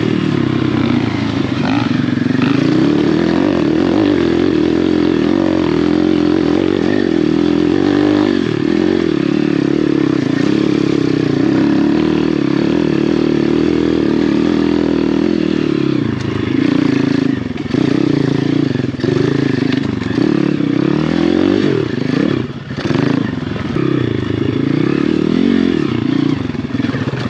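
A 150cc pit bike engine running under load on a trail ride. It holds steady revs for about the first half, then revs up and down over and over from a little past halfway, dropping off briefly near the end.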